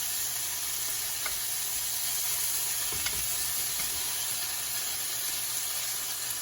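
Shrimp frying in oil in a pan: a steady sizzle with a couple of faint taps.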